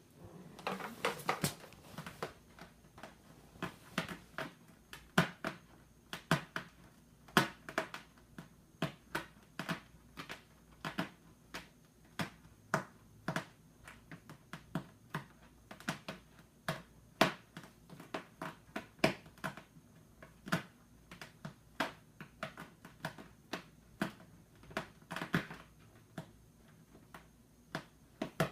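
Sharp taps and knocks from cats at play, coming irregularly at about two a second.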